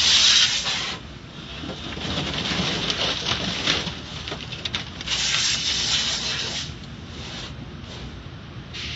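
Automatic car wash water jets spraying against the windshield and body, heard from inside the car: surges of hissing spray, loudest about the first second, over a steady low hum.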